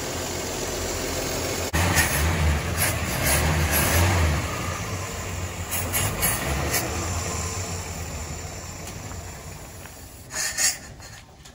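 1954 Chevrolet 3800 pickup's straight-six engine idling steadily, its ignition points just regapped so the dwell reads much better. The sound grows quieter over the last few seconds, with a brief sharp clatter near the end.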